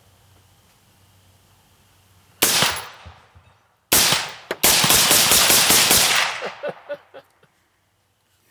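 Gunshots at a Tannerite-filled target that does not go off: a single sharp report about two and a half seconds in, then another about four seconds in, followed at once by a dense run of rapid cracks lasting about a second and a half.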